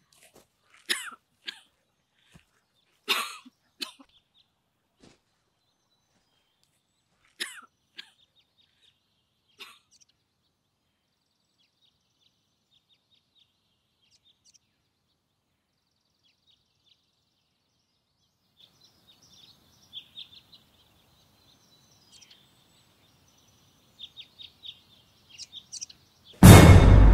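Horror-film soundtrack: a few short, sharp rustles and clicks, a long quiet stretch, then faint high crackling, and near the end a sudden loud hit with a deep rumble, a scare sting.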